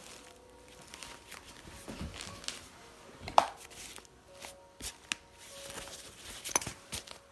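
Scattered light knocks and clicks in a small room, with a sharper knock about three and a half seconds in and another about six and a half seconds in.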